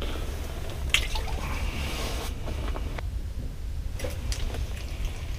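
Water splashing and dripping in an ice-fishing hole, with a few light clicks and a steady low rumble underneath.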